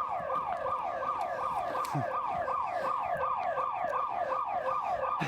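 Building security alarm siren sounding continuously in rapid falling sweeps, about four a second: the intrusion alarm set off by motion detectors.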